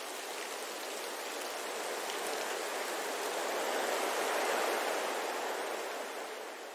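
A steady rush of water sound, an even hiss with no tones, swelling a little toward the middle and fading out at the end.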